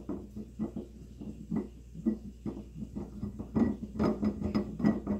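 Glass mason jar being screwed by hand onto the threaded fitting under a Catalyst conical fermenter's valve, reattaching the yeast collection jar. It makes a run of small irregular clicks and scrapes, busiest in the second half.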